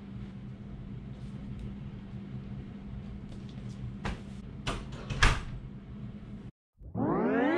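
Steady low room hum with a few sharp knocks and clatters of handling about four to five seconds in, the last the loudest, from movement at the closet door and camera. After a brief drop to silence near the end, a rising swell of many tones opens the background music.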